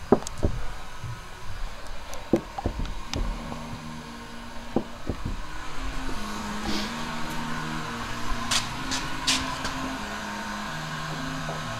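Handheld heat gun's blower running with a steady whirring hum that strengthens about halfway through. Sharp knocks and rubbing from the camera being handled are heard in the first few seconds, and a low hum shifts in pitch in steps underneath.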